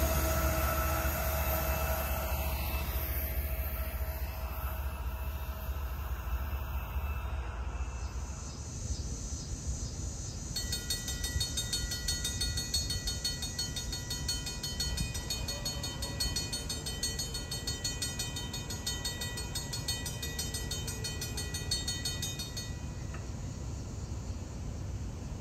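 A freight train rumbling past and fading away, then a railroad grade-crossing bell ringing rapidly and steadily for about twelve seconds, warning of an approaching train, before it stops.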